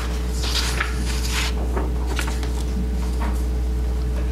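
A steady low electrical hum on the microphone feed, with soft rustling and a few small clicks of paper handling near the microphone, loudest in the first second and a half.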